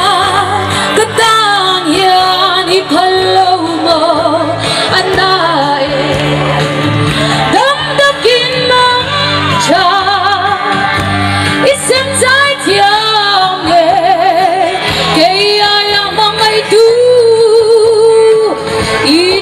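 A woman singing live into a microphone over amplified backing music, her long held notes wavering with vibrato.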